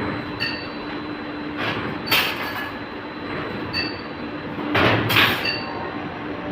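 Automatic CNC stirrup ring-bending machine running on steel bar. A steady motor hum is broken by short ringing metallic clicks about every second and a half, with two louder rushing bursts about three seconds apart.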